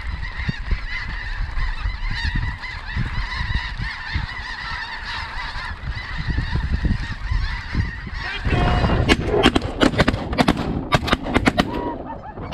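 A large flock of snow geese calling continuously, a dense chorus of honks. About eight and a half seconds in, a rapid string of sharp shotgun blasts from several guns fires over about three seconds as the hunters shoot into the flock.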